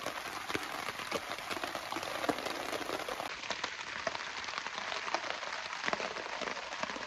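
Steady rain falling, with many individual drops ticking as they strike a tarp overhead.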